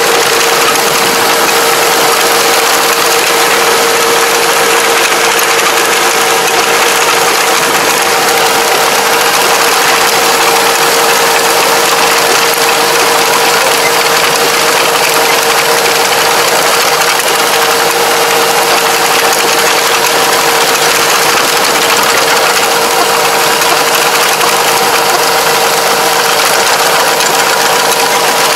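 Farm tractor's diesel engine running steadily as the tractor drives a rear-mounted Kobashi rotary implement, heard close up. It makes a constant drone with a steady whine that does not change.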